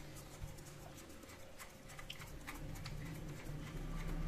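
Faint, irregular clicks and ticks of a plastic toy screwdriver turning a long screw into a plastic toy train body.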